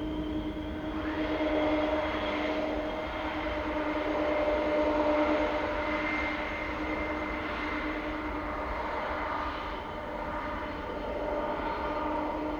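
Boeing 747 freighter's jet engines running on approach: a steady rushing noise with several held whining tones over it.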